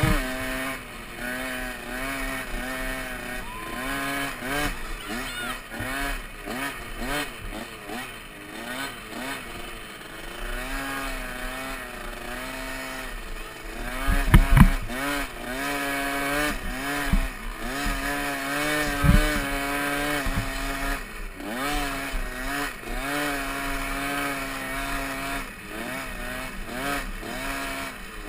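Small youth motocross bike engine, heard close from the rider's helmet, revving up and down continually as the throttle is worked around the track. A couple of heavy thumps come over bumps, the biggest about halfway through.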